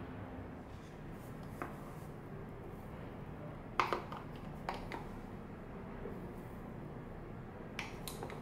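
Light clicks and taps of kitchenware being handled at a counter, a cluster about four to five seconds in and two more near the end, over a faint low steady hum.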